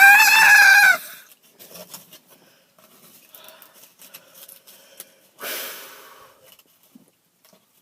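A man's long, high-pitched scream, held on one wavering pitch, cutting off suddenly about a second in. After a quiet stretch with faint clicks, there is one loud wheezing breath about five and a half seconds in that fades away.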